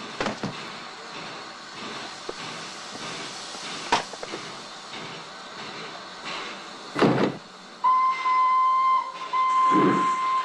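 Steam locomotive hissing steam, with a few sharp knocks. About eight seconds in, its steam whistle sounds a long steady note that breaks briefly a few times, and loud bursts of steam come a couple of seconds apart.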